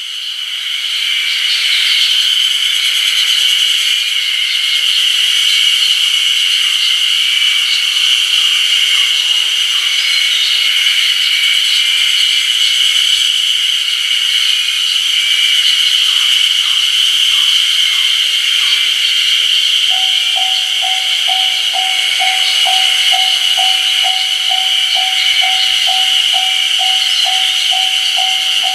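Dense chorus of Ezo-harusemi spring cicadas (Terpnosia nigricosta) calling steadily and loudly. About twenty seconds in, a level-crossing warning bell starts ringing, a little over two dings a second.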